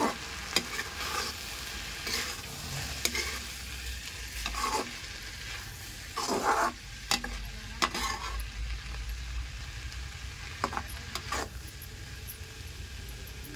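A spatula stirring and scraping corn kernels, onion and tomato around a metal kadhai, with irregular scrapes and clinks against the pan over a light frying sizzle. The stirring is busiest about six to eight seconds in and thins out after that.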